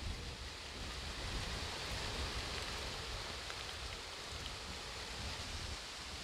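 Steady, even hiss of outdoor background noise with a faint low rumble, without distinct events.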